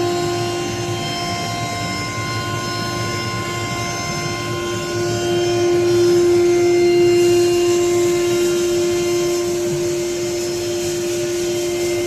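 CNC router spindle running at a steady high speed while it cuts, a constant whine over cutting noise, a little louder about six seconds in.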